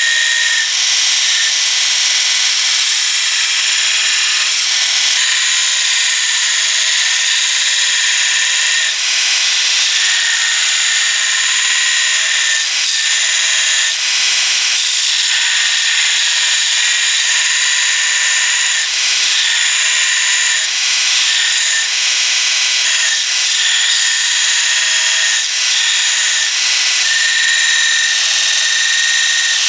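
An electric power tool running under load on the steel of a saw blade, with a loud, high-pitched whine that eases briefly every few seconds.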